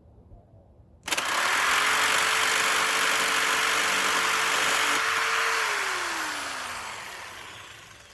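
Handheld power cutting tool cutting through a hinge. It starts suddenly about a second in and runs at a steady pitch with a loud hiss of cutting for about four seconds. Then it is switched off and its whine falls as it spins down and fades.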